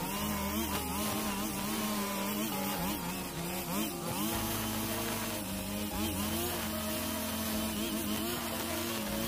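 45 cc two-stroke brush cutter engine running at high speed, its pitch dipping briefly and recovering several times as the spinning nylon line bites into thick grass.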